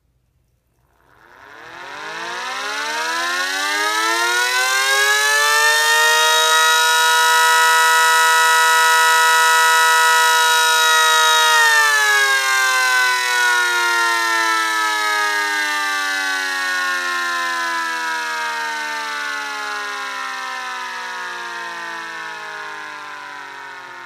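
Small homemade 3D-printed electric siren with a 9/12-port chopper and vaned rotor, winding up from rest to a steady wail over about five seconds, holding its pitch, then slowly winding down.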